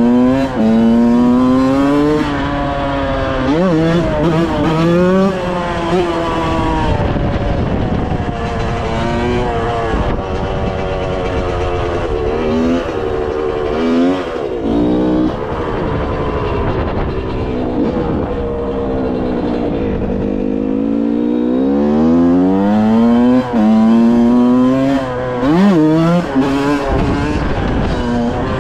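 Yamaha YZ125 two-stroke dirt bike engine being ridden hard, its pitch climbing as it revs, dropping at each shift or throttle-off, and climbing again, with a few quick throttle blips.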